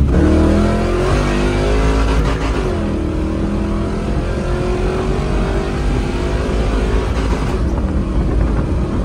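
A 500-plus-horsepower 1999 Chevy S10 street truck's engine accelerating hard up through the gears: the pitch climbs, drops at a shift near the start and again about 2.5 s in, then climbs more slowly through the next gear.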